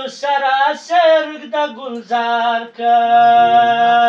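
A man singing a Pashto folk song (bandar) unaccompanied, in ornamented, gliding phrases; from about three seconds in he holds one long steady note.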